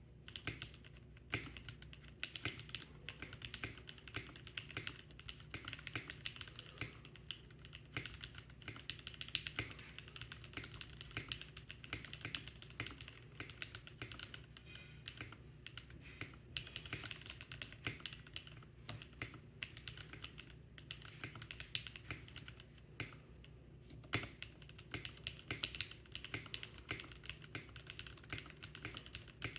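Continuous fast typing on a Portico mechanical keyboard with JWK linear switches lubed with Krytox 205: a dense, irregular run of key clacks.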